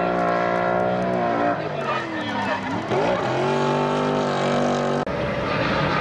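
Drift car engine held at high revs, with the revs dropping and climbing back about halfway through, then held high again. The sound cuts off abruptly about five seconds in and gives way to a noisier rumble.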